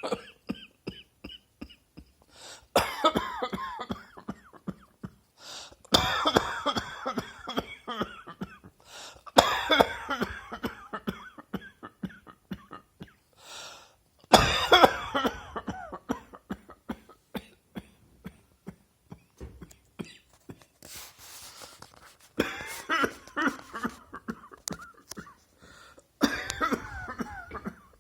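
A person coughing in repeated fits: about six bouts, each a rapid run of harsh coughs, with short pauses between them.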